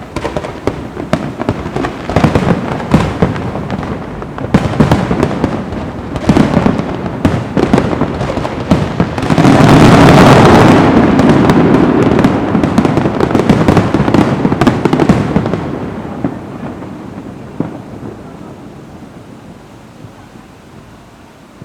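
Fireworks going off in a rapid run of sharp cracks and pops. About ten seconds in they build into a dense, continuous crackle, then die away over the last several seconds.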